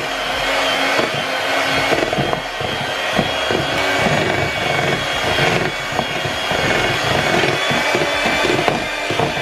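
Handheld electric mixer running steadily, its beaters churning a thick cream cheese and Biscoff spread mixture in a plastic bowl, with a high whine and frequent small knocks of the beaters against the bowl.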